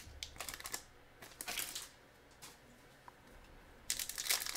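Foil trading-card pack being handled and opened. There are a few light crinkles and clicks over the first two seconds, then a near-quiet pause, then steady crinkling of the foil wrapper from about four seconds in.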